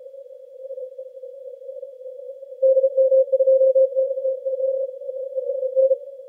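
Morse code (CW) on the 80-metre amateur band from a Yaesu FTdx10 receiver: a single mid-pitched keyed tone over a narrow band of hiss, heard through a narrow CW filter. Weak signals sit in the noise at first, then strong keying starts a little under halfway through and stops near the end.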